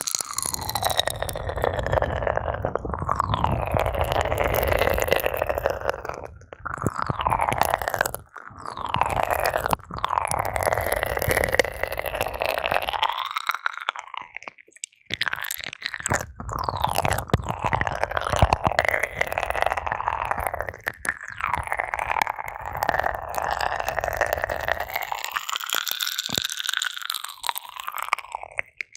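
Ear-cleaning ASMR: an ear pick scraping and rubbing in a microphone's ear, a crackly scratching with a hollow resonance that rises and falls as the pick moves. There are brief pauses about 8 seconds in and again around halfway.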